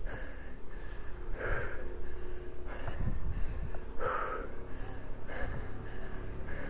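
A cyclist breathing hard and rhythmically while pedalling up a steep climb, about three loud breaths every four seconds: the sign of heavy exertion on the ascent.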